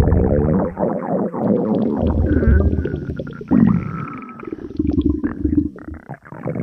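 Cartoon stomach sound effects: a run of low, irregular gurgling and growling stomach rumbles, with a new one starting about halfway through.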